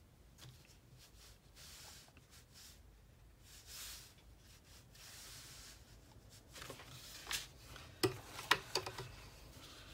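Watercolour brush stroking paint onto paper in soft, faint strokes, then rinsed in a water jar, tapping sharply against its side several times near the end.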